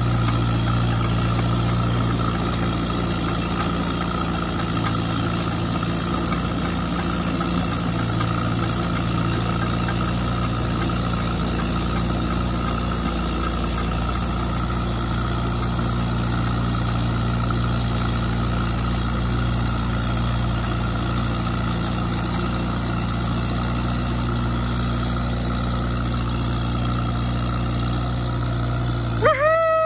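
Small vintage tractor engine running steadily at low speed as the tractor creeps along. Near the end a short falling whistle-like tone is heard.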